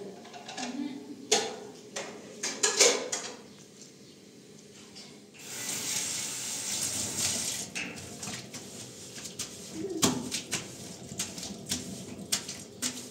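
A few knocks and clatters, then a tap turned on about five seconds in, with water running into a stainless-steel kitchen sink for a couple of seconds. After that, a sponge scrubs the steel sink in quick short strokes.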